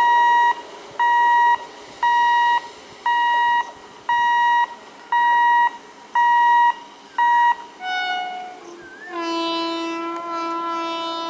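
Electronic beeper sounding half-second beeps about once a second, then the approaching MEMU electric train's horn: a short note about eight seconds in, followed by a long steady blast from about nine seconds on.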